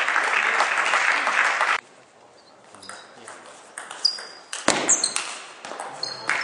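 Spectators applauding, cut off abruptly about two seconds in. Then a table tennis rally: the celluloid ball clicks sharply off bats and table several times a fraction of a second apart, each hit with a short high ping.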